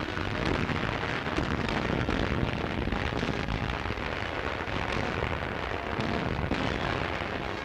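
Naval guns of warships firing in a continuous shore bombardment: a dense, unbroken rumble of gunshots and explosions with many sharp reports, on an old film soundtrack.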